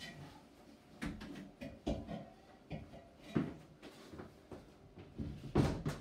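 A handful of irregular knocks and clunks, like a wooden hatch or door being handled; the loudest comes near the end.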